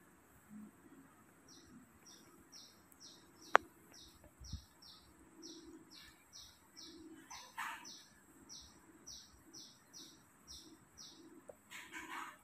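A bird calling in a steady run of short, high chirps that fall in pitch, about two or three a second. A single sharp click stands out a few seconds in.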